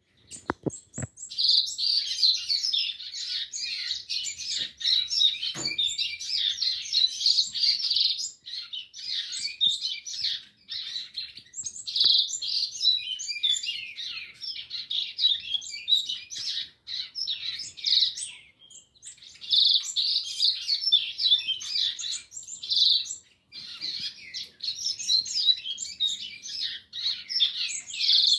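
Two caged seedeaters singing long, fast, twittering songs, with only short pauses between bouts. A dull thump sounds about six seconds in.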